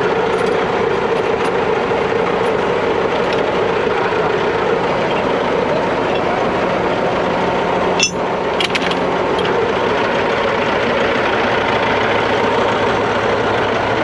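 Heavy diesel engine idling steadily, with a single sharp metallic clank about eight seconds in.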